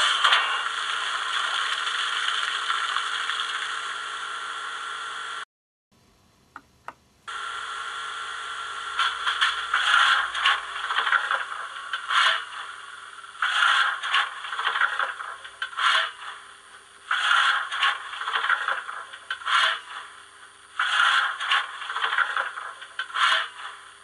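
Fleischmann BR 86 model steam locomotive's sound decoder playing standing-locomotive sounds through its loudspeaker. A steady hiss cuts off about five seconds in. After a short silence with a couple of clicks, a faint steady background runs under loud hissing puffs, repeating about every one and a half to two seconds in an alternating short-long rhythm.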